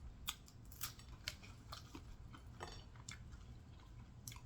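A person chewing fried fish close to the microphone: faint, irregular small clicks and crackles, a few every second.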